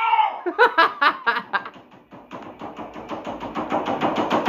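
Rapid, even knocking on a bedroom wall, about eight knocks a second, starting about two seconds in and growing steadily louder. It follows a man's shouted "No!" that ends right at the start.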